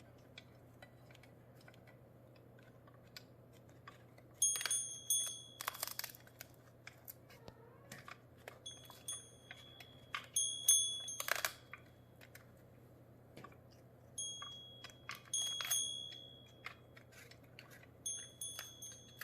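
A small metal bell rings in short jingles four times, among scattered clicks and light crunching, as an African grey parrot works at a hanging foraging toy in its cage.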